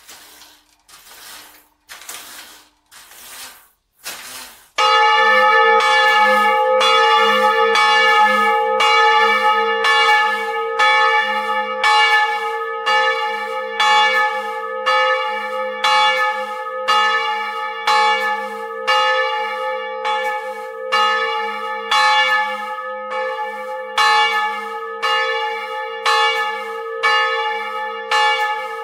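Old bronze church bell swinging in full swing, its clapper striking about once a second with a long ringing hum underneath. For the first five seconds or so there are only soft rhythmic knocks and creaks from the swinging bell before the clapper starts to strike.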